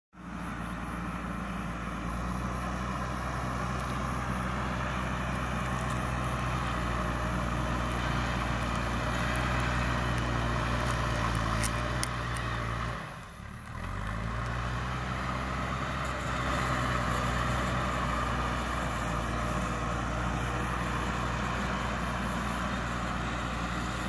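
JCB 3DX backhoe loader's diesel engine running steadily under load while the front bucket pushes soil, with a brief dip in level about halfway through.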